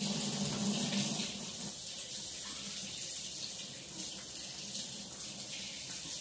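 Kitchen faucet running steadily into the sink as a child washes his hands under it, switched on just as the sound begins.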